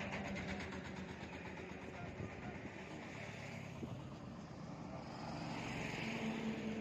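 Highway traffic: road vehicles passing with a steady engine hum and tyre noise, growing a little louder about six seconds in.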